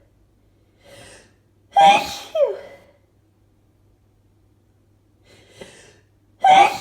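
A person sneezing from allergies: a short breath in, then a loud sneeze about two seconds in that ends on a falling pitch, then another gasping breath in and a second loud sneeze starting near the end.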